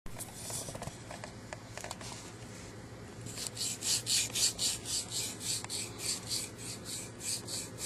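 Hand sanding with sandpaper: quick back-and-forth scraping strokes, faint at first, then a steady run of about four strokes a second from about three seconds in.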